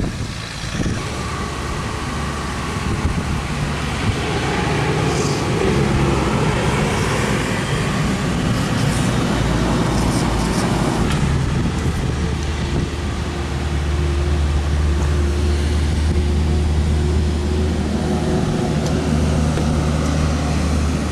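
A motor running steadily with a low hum that shifts in pitch about eleven seconds in.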